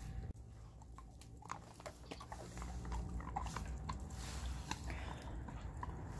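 A pet chewing, with many short, irregular crunching clicks.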